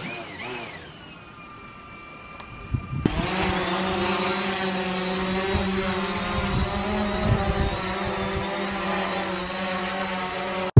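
Small folding quadcopter drone starting its motors with a faint whine, then about three seconds in the propellers spin up to a loud, steady high whine as it lifts off and hovers.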